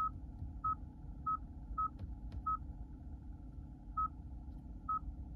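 Hyundai Ioniq 5 navigation touchscreen giving short button-press beeps as the map zoom-out button is tapped repeatedly: seven brief beeps, all at one pitch, at uneven intervals, with a pause of about a second and a half in the middle.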